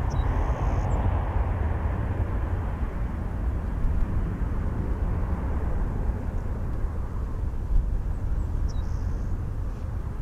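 Jet engine noise of a twin-engine Airbus A330 airliner climbing out after takeoff: a steady, deep rumble whose brighter upper part fades as the aircraft draws away.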